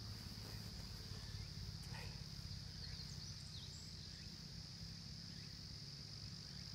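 Steady high-pitched insect chorus, one continuous drone, over a low rumble.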